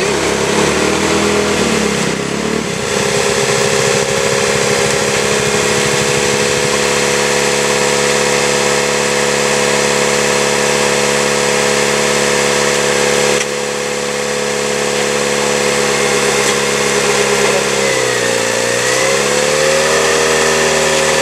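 Off-road vehicle's engine running steadily, its pitch dipping briefly and coming back up near the end.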